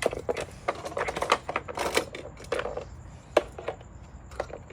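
Small plastic toy trains and toy pieces being handled, clicking and clattering irregularly, with one sharper click about three and a half seconds in.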